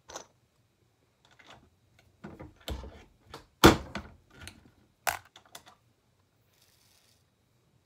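A bench press with a collet bullet puller being worked on 7.62 NATO cartridges: an irregular series of metallic clicks, clinks and knocks as the lever is cycled, cartridges are handled and pulled bullets and cases are dropped, the loudest knock a little past the middle. A faint, brief hiss comes near the end.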